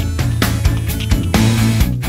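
Rock music in an instrumental passage without vocals: guitar over bass and a steady drum beat.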